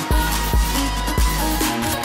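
Electronic background music with a steady beat of deep bass drum hits and sustained synth tones.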